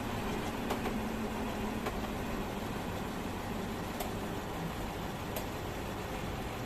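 Steady engine and tyre noise heard from inside a car's cabin as it drives slowly, with a few faint clicks.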